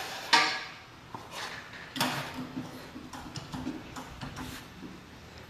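Metal tools and parts being handled at a car's wheel hub: a brief scrape near the start, a sharp clank about two seconds in, then light scattered clicks and knocks.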